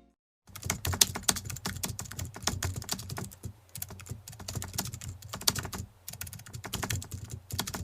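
Packaging being handled: a fast, irregular stream of crinkling and clicking, like a plastic mailer pouch being turned over and rubbed. It starts about half a second in.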